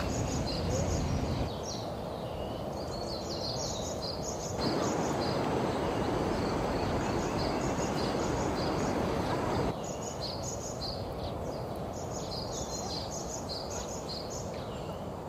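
Forest birds chirping repeatedly over a steady outdoor hiss. The hiss jumps louder about four and a half seconds in and drops back abruptly near ten seconds.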